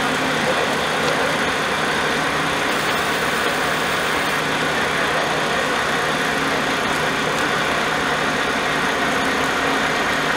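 Heavy-haul truck's diesel engine running steadily at low revs while it moves a railcar on its trailer.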